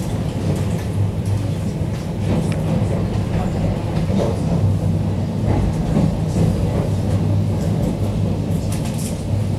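Inside a moving ED9MK electric train: the steady low running hum of the train, with wheels clicking now and then over rail joints and switches.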